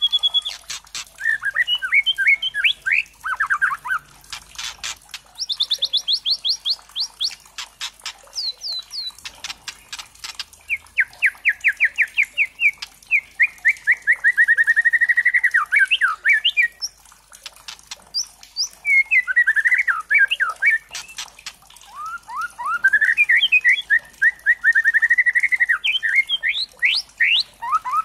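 White-rumped shama (murai batu trotol) singing a lure song. It gives fast runs of rapidly repeated whistled notes and trills, some sliding up or down in pitch, broken by sharp clicking notes.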